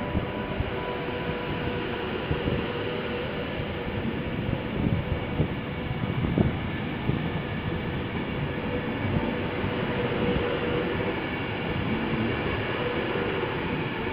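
Class 390 Pendolino electric train passing along the platform: a steady rumble of wheels on rail with a thin steady hum running under it, and a few louder knocks, the strongest about halfway through.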